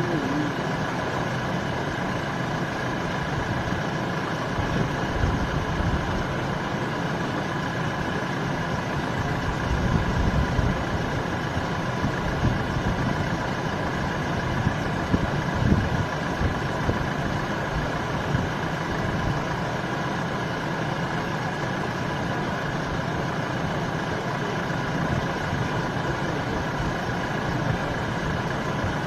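Vehicle engines idling steadily, with a few brief louder low swells.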